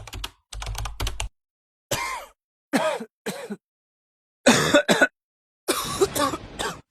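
A quick run of clicks in the first second or so, then a person coughing and clearing their throat in several separate bouts, the strongest about four and a half seconds in.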